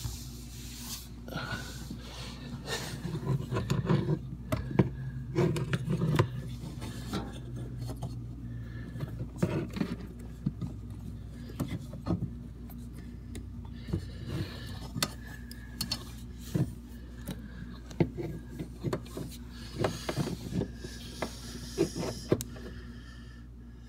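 Hands working in the tight space under a dishwasher, screwing in the water inlet valve fitting: irregular rubbing and scraping with many small clicks and knocks of metal and plastic parts, over a steady low hum.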